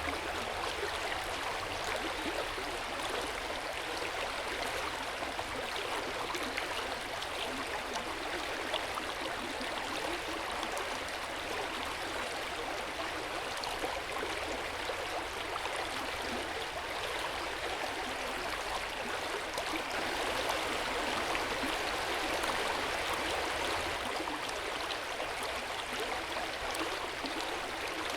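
Hot-spring water running into an open-air bath: a steady, gentle rush of flowing water with no breaks.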